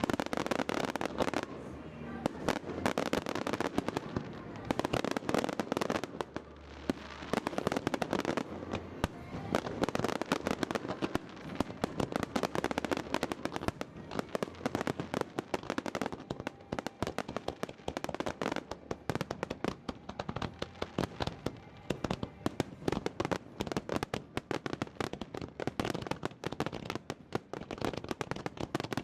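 Aerial fireworks bursting one after another, with dense crackling. Through the second half the bursts and pops come in a rapid, continuous run.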